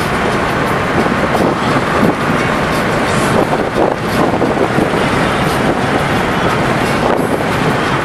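Steady road noise of a car driving along a paved road, heard from inside the car: a dense, even rumble of tyres, engine and wind.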